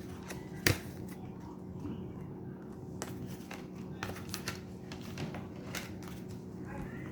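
Tarot cards being handled on a table: scattered light clicks and taps, the sharpest about two-thirds of a second in, over a steady low hum.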